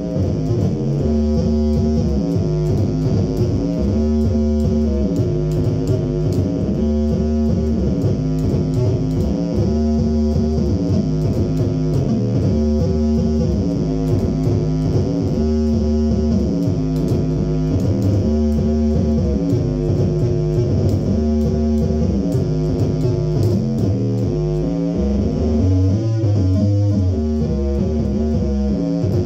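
Electric bass guitar played through a Phil Jones Bass amp and cabinet: a phrase of sustained notes that slide between pitches, repeating about every two seconds.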